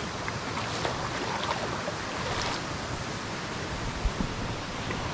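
Steady rushing of flowing water, with a few faint clicks and a brief low thump about four seconds in.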